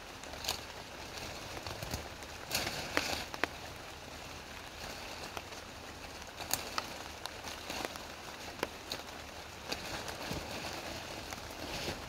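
Steady rain falling on forest undergrowth, with scattered sharp crackles and rustling as leafy brush is handled and broken, a cluster of louder cracks a few seconds in.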